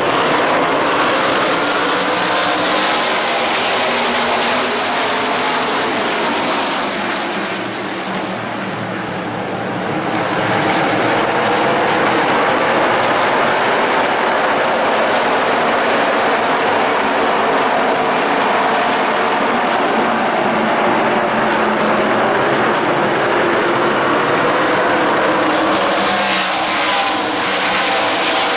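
V8 engines of a pack of NASCAR Craftsman Truck Series trucks running around a short oval, a steady loud drone from many engines at once. It dips briefly about eight seconds in, then builds back.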